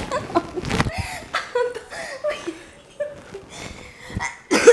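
A man and a woman laughing together in broken fits, with a louder burst of laughter near the end.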